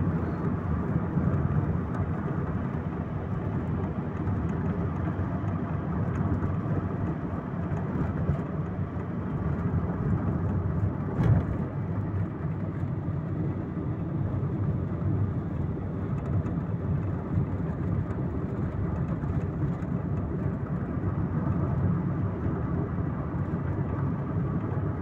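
Car driving along a road: steady road and engine noise heard from inside the cabin, with a single thump about eleven seconds in.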